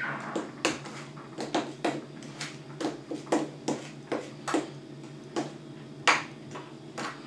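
A metal teaspoon stirring dry flour in a clear plastic beaker, clicking and tapping against the sides about twice a second, with one louder knock about six seconds in.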